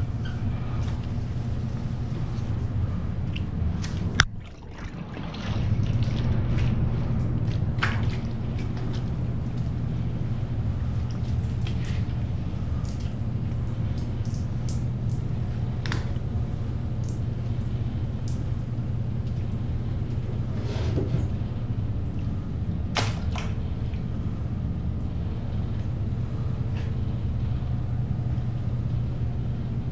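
Hand wet-sanding of a motorcycle tank's clear coat with soaked 2000-grit sandpaper, a soft rubbing over a steady low hum. A sharp click comes about four seconds in, after which the hum briefly drops and then returns.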